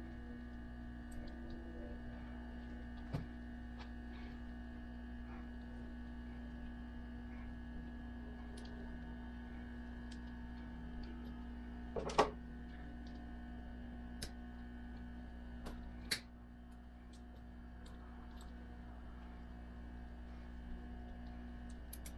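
Steady electrical hum with scattered light clicks and clinks as the steel chain of a Terra Grip tire traction device is handled on a tractor tire, and one louder knock about halfway through.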